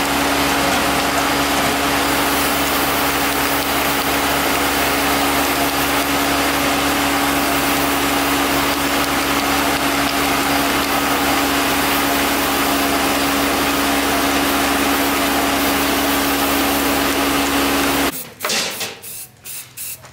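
A loud, steady whirring noise with a constant hum that cuts off suddenly near the end. It is followed by a quick series of short hisses from an aerosol spray-paint can.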